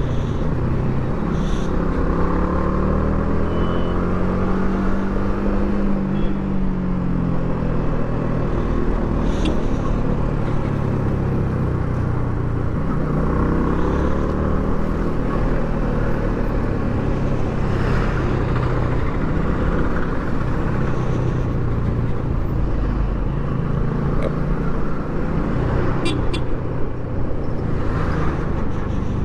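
Yamaha R15 V3's 155 cc single-cylinder engine with its stock exhaust, running while riding, its pitch rising and falling several times with the throttle.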